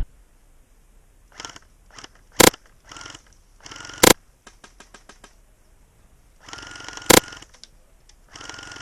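Airsoft gunfire: three sharp single shots spaced a second or more apart, with a fainter quick rattle of shots between the second and third.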